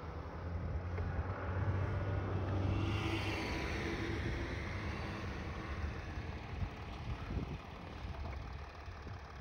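Mercedes-Benz X 350d's V6 diesel working under load as the pickup digs its tyres into snow on a climb, with the traction control reining in the wheelspin. The engine note swells about a second in, then eases off over the last few seconds.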